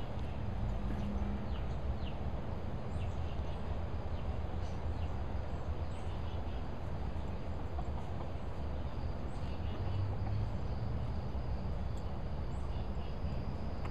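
Steady low rumble of wind on the microphone, with faint short bird chirps scattered throughout.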